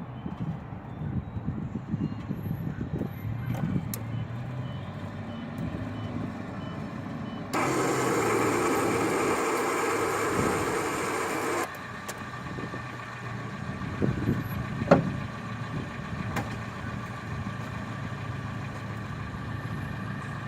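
Starter motor of a 1981 Datsun truck buzzing for about four seconds when the key is turned, starting and stopping abruptly without cranking the engine. The owner takes it for a weak starter and later traces it to a poor ground on the starter housing. A steady low rumble runs underneath, with a sharp click later on.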